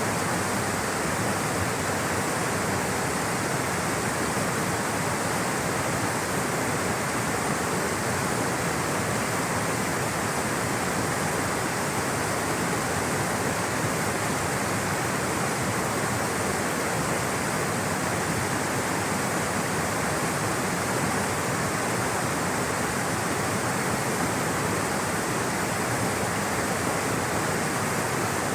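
Rushing water flowing steadily, a constant even roar with no breaks.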